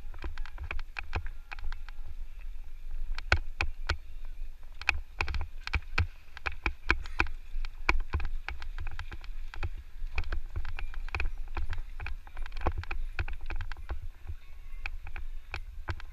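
Electric mountain bike clattering over a rough trail: dense, irregular knocks and rattles from the bike as it rides over bumps, over a low rumble on the microphone.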